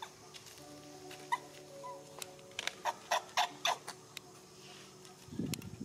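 Irregular sharp slaps and clicks of flip-flop footsteps on pavement, clustered in the middle, over faint held notes of background music. A brief low rustle comes near the end.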